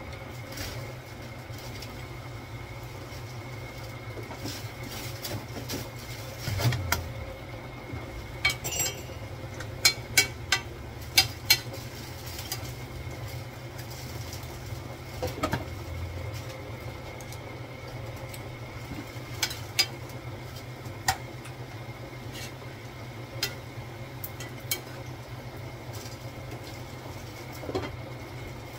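Metal spoon and lid clinking against a pan while cabbage is stirred, over a steady low hum. There is a quick run of clinks about a third of the way through and scattered single ones after.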